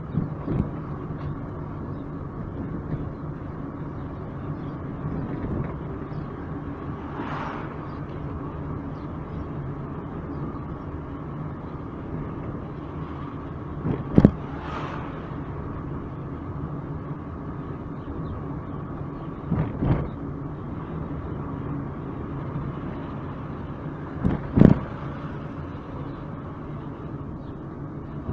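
Car driving slowly with a steady engine and road hum. An oncoming car passes with a whoosh about fourteen seconds in, and a few sharp knocks come through, loudest at about fourteen and twenty-four seconds in.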